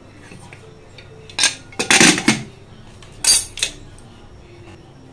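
Metal clattering on an aluminium pressure cooker as the cooked rice is stirred, then two sharp clanks about three seconds in as the cooker's lid is set on. The loudest clatter comes about two seconds in.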